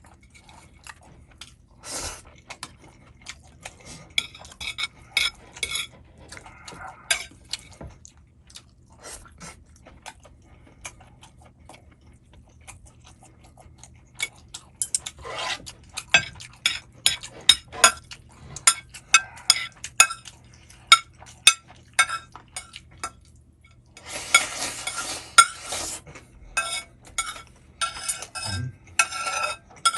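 Utensils clicking and scraping against a bowl of Chapagetti noodles, in many separate sharp clinks. There is a denser stretch of scraping and stirring a few seconds before the end.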